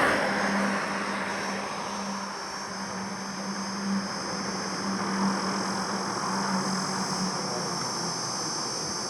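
Steady highway traffic noise with a low engine hum that fades away about three quarters of the way through.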